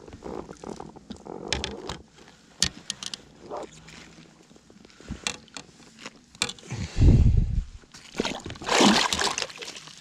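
Water splashing and sloshing at the side of a small boat as a wels catfish is grabbed by the jaw and landed by hand. Scattered knocks and clicks of handling, a heavy low thump about seven seconds in, and the loudest splash shortly before the end.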